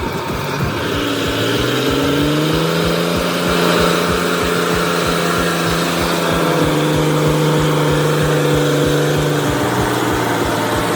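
Heavy vehicle engine running under load, with a steady low throb of about five beats a second. Its pitch climbs during the first few seconds, then holds, shifting again twice later on.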